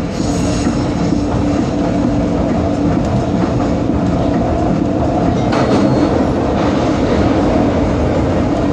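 SEPTA M-4 Market-Frankford Line rapid-transit car running along elevated track, heard from inside the car. A steady rumble of wheels on rail with a constant motor hum underneath.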